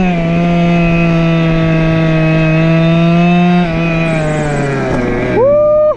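Go-Ped scooter's small two-stroke engine running under way at a steady, fairly high pitch. About two-thirds of the way through, the pitch sags lower as the throttle eases off. Near the end, quick rising-and-falling revs come in.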